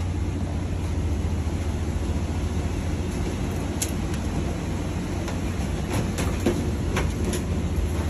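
Steady low hum inside a parked airliner's cabin during boarding, with a few sharp clicks and knocks about four, six and seven seconds in.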